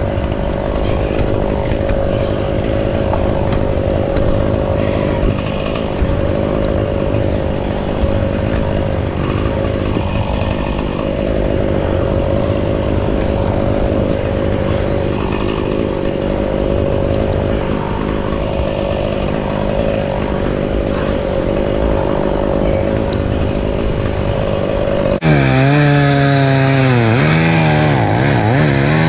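Chainsaw running steadily at a high, constant pitch. About 25 seconds in it cuts abruptly to a lower engine sound whose pitch rises and falls repeatedly, like an engine being revved up and down.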